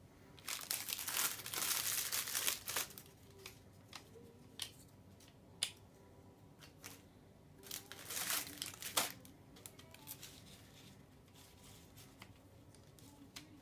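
Crinkling and tearing of kit board pieces as they are handled, in two bursts: one about a second in and one near eight seconds in. Light clicks and taps come between the bursts.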